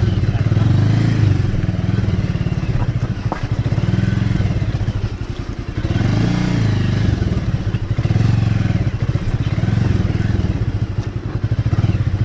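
Bajaj Avenger 220 motorcycle's single-cylinder engine running at low revs with a steady pulsing note. The note dips briefly a little past the middle, then picks up again.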